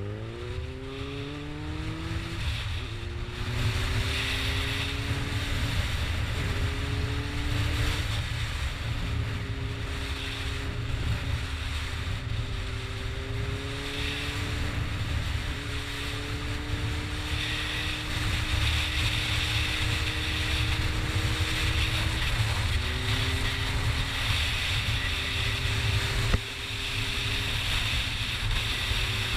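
Motorcycle engine pulling away and climbing in pitch over the first few seconds, then running at a fairly steady speed with small rises and dips, over a constant rush of wind. A single short knock sounds near the end.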